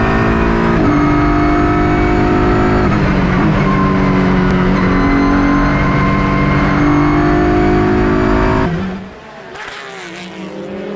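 Onboard sound of a Ligier JS P4 prototype's V6 engine running hard on track, the engine note holding and then stepping up or down several times with gear changes. About nine seconds in it cuts off abruptly to a quieter sweeping sound effect.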